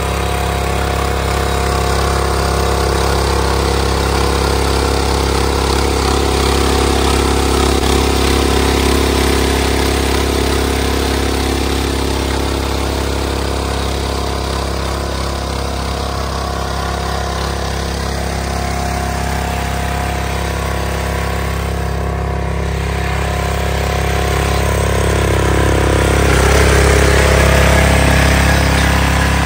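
Power weeder's engine running steadily under load as its rotary tiller blades churn through hard, dry, unwatered soil, getting louder for a few seconds near the end.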